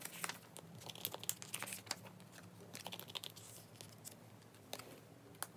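Plastic photocard binder sleeves crinkling and rustling softly as cards are slid into the pockets and pressed flat by hand, a scatter of small irregular crackles.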